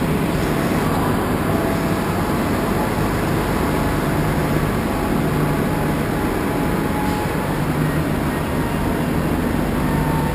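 Steady loud din of idling buses and traffic noise.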